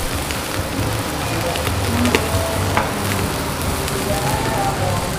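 Pork sizzling on a sin dat (mookata) tabletop grill: a steady spattering hiss with a few sharp pops.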